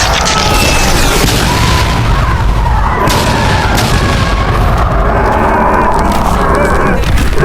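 Dense, continuous booming and rumbling of explosions and heavy impacts in a kaiju battle's sound effects, loud throughout with no break.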